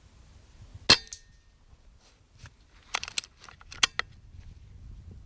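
A pre-charged pneumatic air rifle firing once with a sharp crack about a second in, taking a rabbit at about 35 metres. A second, weaker click follows just after it, then a quick run of metallic clicks and clinks a couple of seconds later.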